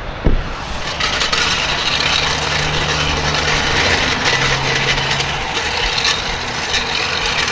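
Hand or power tools working on a car wheel during a tire change, making a continuous mechanical ratcheting rattle, with two short low motor-like hums in the middle.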